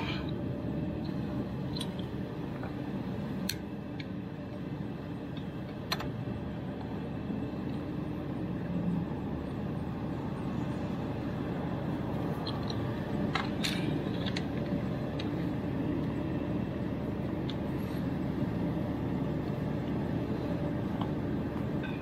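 Steady low machine hum, with a few sharp metal clicks as a flaring tool is handled and fitted onto a copper refrigerant line.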